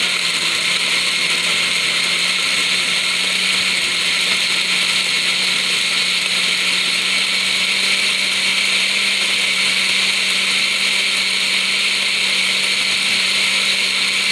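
Oster countertop blender running steadily, blending leftover food scraps and water into a slurry.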